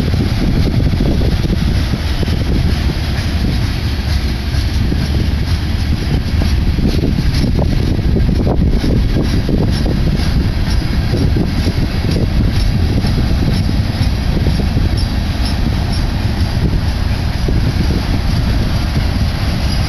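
Freight cars of a slow-moving BNSF manifest train rolling past on the mainline: a steady, loud low rumble of steel wheels on rail.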